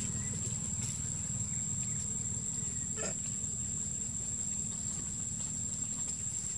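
Insects droning steadily at a high pitch over a low, steady rumble. A brief faint sound comes about three seconds in.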